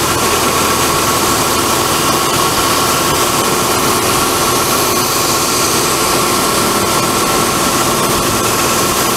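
Belt sander and Shop-Vac dust collection running together, a loud, steady machine noise with a whine on top.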